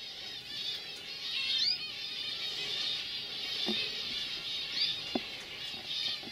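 Several domestic canaries singing together in a continuous tangle of fast chirps and trills, with a few sharp rising whistles. Two or three soft knocks sound under the song in the second half.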